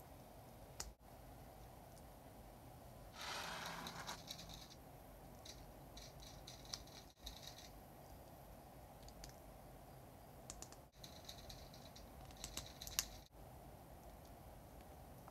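Plastic parts of a Bandai HG Gundam model kit being handled and pressed together: a short rustle about three seconds in, then scattered clusters of light plastic clicks, the sharpest near the end.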